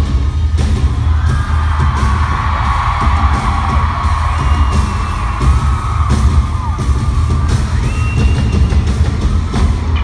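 Live arena concert music: a bass-heavy band with drum hits and a woman singing held notes, with crowd yells over it.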